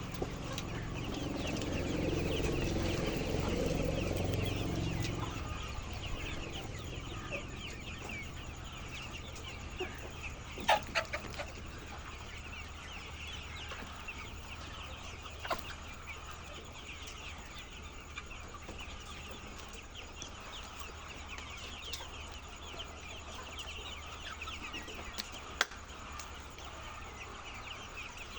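A large flock of laying hens clucking and chattering together in a dense, continuous din. A low rumble swells and fades over the first few seconds, and a few sharp clicks stand out, the loudest cluster about ten seconds in.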